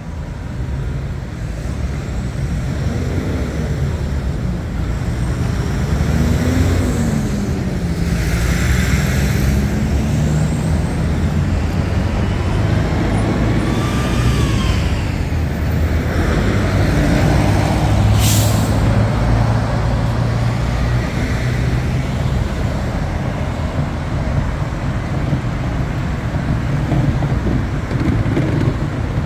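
Busy street traffic with buses and trucks running close by: a steady deep engine drone under road noise, with a brief sharp hiss about eighteen seconds in.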